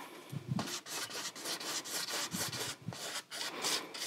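Large paintbrush loaded with acrylic paint brushed across a stretched canvas: a rubbing stroke repeated about three times a second.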